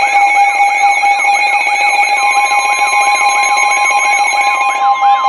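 Several weather alert radios sounding their alarms at once: a warbling siren tone sweeping about four times a second over steady high-pitched alarm tones. Another steady tone joins about two seconds in, consistent with the weather service's warning alert tone.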